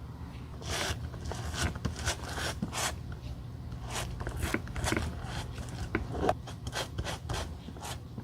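Hand tool scraping or filing against a shoe in short repeated strokes, about two or three a second, over a steady low hum.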